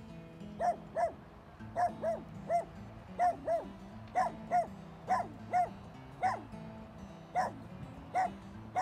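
A dog barking over and over in short, high barks, mostly in pairs about once a second, over steady background music.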